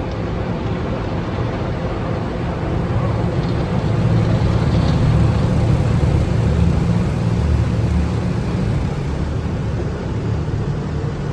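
Automatic car wash heard from inside the vehicle: a steady rush of spray and machinery with a heavy low rumble, growing louder for a few seconds in the middle.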